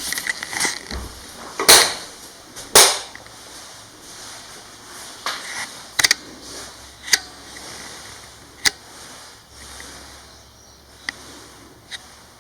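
A handful of irregularly spaced sharp knocks and clicks in a small room, the two loudest about two and three seconds in, the rest lighter.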